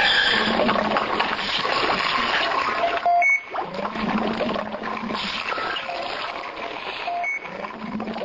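Water running and splashing, with a short beep about three seconds in and again around seven seconds.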